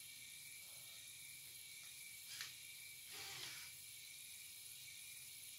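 Near silence: faint steady room hiss, broken by a short hissing puff about two and a half seconds in and a slightly longer one just after three seconds.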